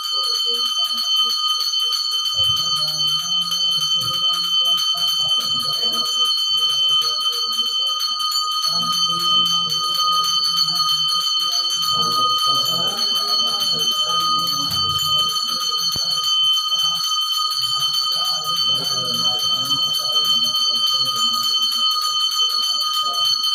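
Brass puja hand bell rung continuously during temple worship, a steady bright ringing with rapid clapper strikes, with a man's low voice coming and going underneath.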